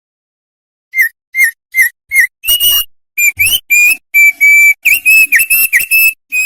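Opior songbird singing in loud, clear whistles: four short separate notes about a second in, then a quicker run of longer whistled notes, some sliding up or down.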